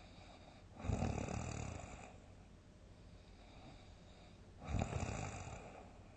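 A sleeping person snoring loudly: two big snores about four seconds apart, each starting abruptly and fading away over about a second.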